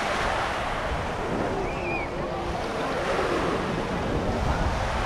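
Waves washing onto a sandy beach, with wind rumbling on the microphone.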